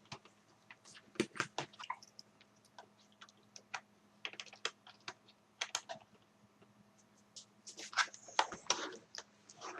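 Light, irregular clicks and ticks of a small screwdriver working a screw out of an HP DV6000 laptop's plastic case, with a denser run of clicking and scraping about eight seconds in.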